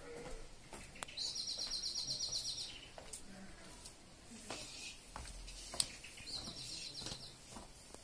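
Nightingale singing: a rapid, high trill of about ten notes a second held for about a second and a half, a shorter trill near the end, and scattered short sharp notes between.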